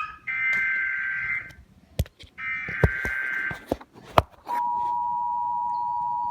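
Emergency Alert System broadcast on a TV: the last two bursts of the SAME digital header, a warbling data screech, each lasting about a second, with a few sharp clicks in the gaps between them. About four and a half seconds in, the steady two-tone EAS attention signal starts and holds.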